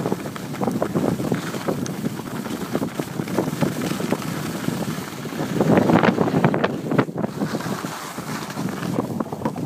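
Wind buffeting the microphone while skiing downhill, mixed with skis scraping and hissing over packed, tracked snow. It swells for a second or so about six seconds in.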